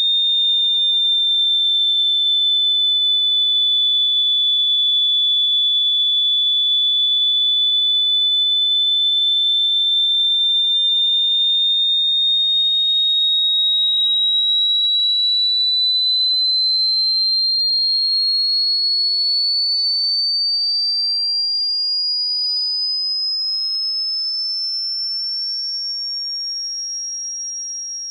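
A single high-pitched electronic pure tone, steady for about twelve seconds, then gliding slowly higher and growing quieter toward the end.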